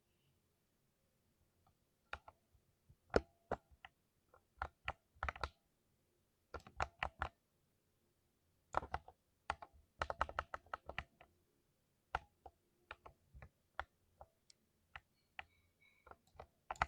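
Typing on a computer keyboard: single keystrokes and quick runs of keys in uneven bursts with short pauses, starting about two seconds in.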